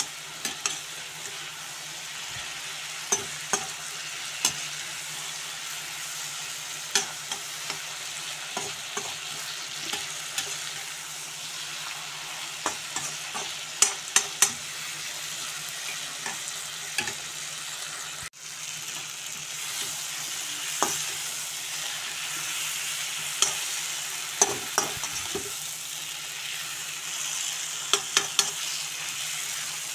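Chicken, onions and masala sizzling as they are stir-fried in a karahi, with frequent irregular clicks and scrapes of a perforated metal spatula against the pan. A low steady hum runs underneath.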